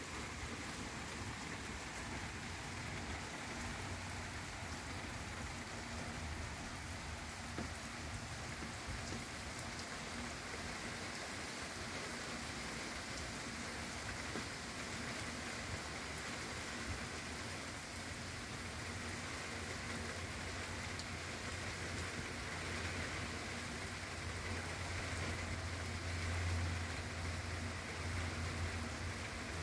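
Steady rain falling, an even hiss of drops, with a low rumble swelling briefly near the end.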